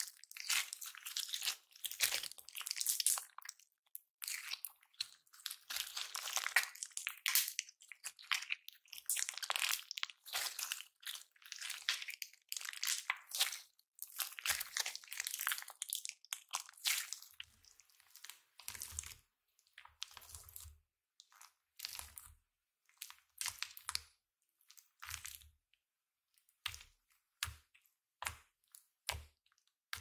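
Foam-bead slime being squeezed and stretched by hand close to a microphone, giving dense crunchy crackling. In the second half it is pressed and poked with the fingertips, and the crackling thins to separate short pops and clicks with soft thumps.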